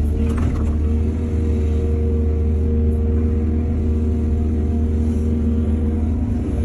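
Heavy diesel engine of an excavator running steadily with a deep, even drone. There is a brief rattle of clattering strokes in the first second.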